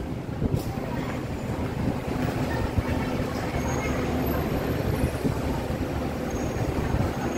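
Steady rumble of busy city road traffic, a continuous wash of engine and tyre noise, with a few faint short high tones now and then.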